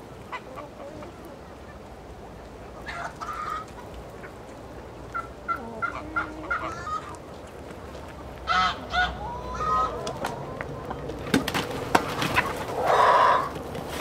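Chickens clucking and squawking in scattered short calls, with a goose honking among them. Near the end come several sharp knocks, then one loud squawk.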